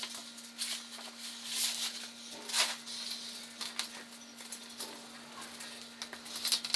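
Thin sheets of wood veneer rustling and crackling as they are lifted and moved, loudest in the first half, followed by the softer scraping of a small glue roller working over plywood. A steady faint hum sits underneath.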